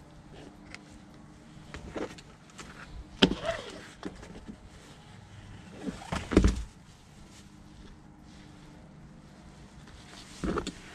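Close handling noise as hands work fishing line and a Sabiki rig: rustling of jacket sleeves and line, with several sudden knocks and bumps, the loudest about three and six seconds in.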